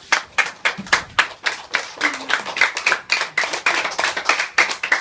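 A small group clapping hands in applause, the claps fast and uneven.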